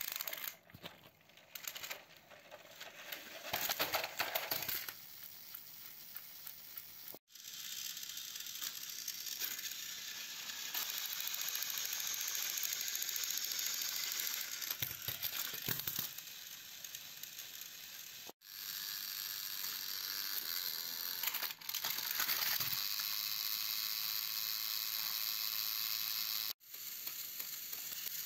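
Battery-powered toy trains running on plastic track: a steady whirring rattle of small motors and wheels. It cuts off and resumes abruptly three times.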